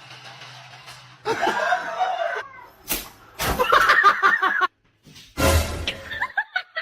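A person laughing in short bursts, with a sharp smack-like hit and some music.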